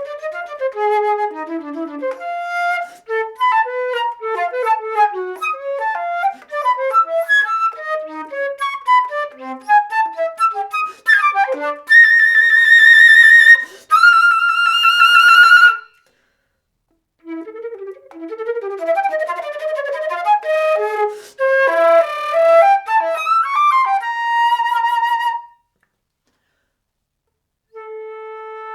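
Solo flute playing fast runs of short notes, then two loud held high notes with vibrato about halfway through. After a brief pause come more rapid passages and a held note, another pause, and a low held note near the end.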